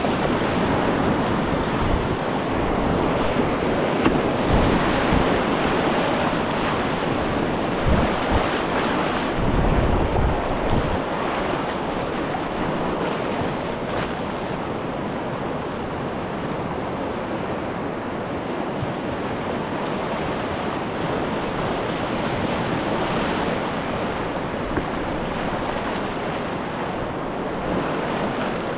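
River whitewater rushing steadily, heard from a kayak in the rapid, with a few low buffets of wind on the microphone in the first ten seconds.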